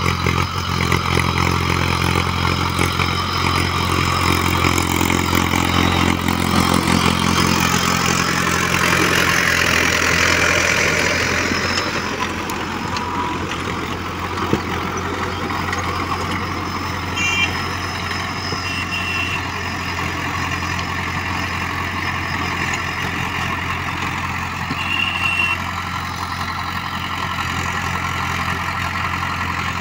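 Mahindra Arjun Ultra 555 DI tractor's four-cylinder diesel engine running steadily under load while pulling a rotary tiller through dry soil. It is louder for the first dozen seconds, then drops a little as the tractor moves away.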